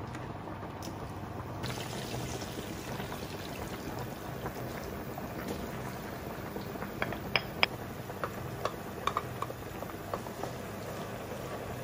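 Cooking on the stove: a pot of pasta water bubbling at the boil, then butter sizzling in a frying pan with chopped vegetables, a steady hiss. A few sharp ticks and clinks come in the second half.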